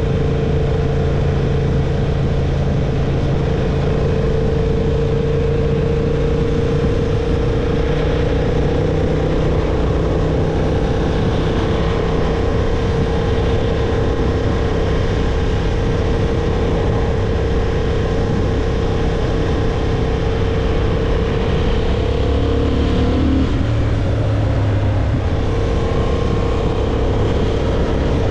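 Honda CB750 Hornet's parallel-twin engine running at a steady cruise under wind rush on a rider-worn microphone. A little over twenty seconds in, the engine note wavers and drops away for a moment, then settles back to its steady pitch.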